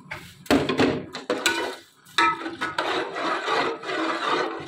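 Dry vermicelli tipped from a ceramic bowl into a metal pot of milk, then a metal spatula stirring and scraping round the pot. A few knocks come in the first second and a half, and steady scraping follows from about two seconds in.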